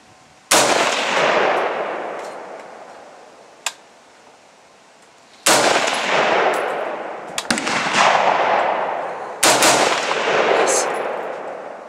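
Stag Arms Model 4 AR-15 rifle firing 5.56 mm rounds: three single shots about four seconds apart, each echoing out for some three seconds. A short sharp click falls between the first two shots.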